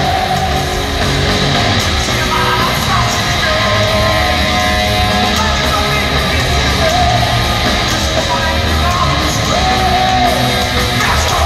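Heavy metal played live by a rock band at concert volume: distorted electric guitars and drums under yelled, sung vocals, running dense and loud without a break.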